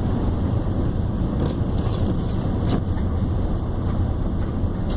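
Steady road and tyre rumble heard from inside a car cabin, driving slowly over a snow- and slush-covered highway, with a few light clicks.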